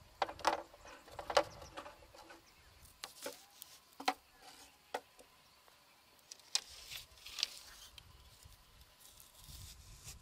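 Dry bamboo stakes clacking and rattling against each other as they are handled and set in the soil: a scattered series of short, sharp knocks, with a quieter stretch just after the middle.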